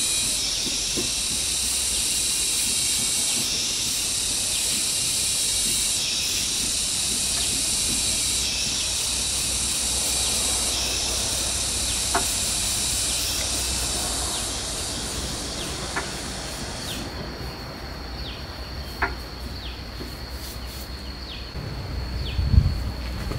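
A shrill, steady insect chorus. About two-thirds of the way through it thins to one high trilling insect with short chirps about once a second, with a few light ticks and a dull thump near the end.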